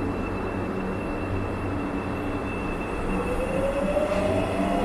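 Marmaray commuter electric train pulling out of the platform: a steady high whine over the running noise, then from about three seconds in the traction motors' whine rising in pitch as the train accelerates.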